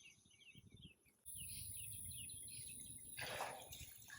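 Small birds chirping over and over, faint. The sound drops out briefly about a second in, and a short rustling burst comes a little after three seconds.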